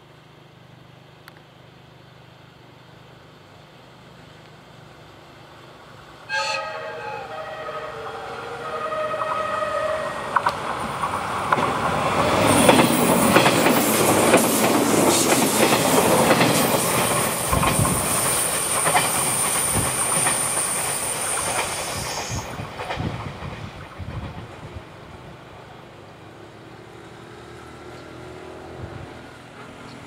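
A 485-series electric train sounds its horn for about three seconds as it approaches: several pitched tones at once. It then passes close by, the wheels clacking over the rail joints and loudest at the middle, and fades away.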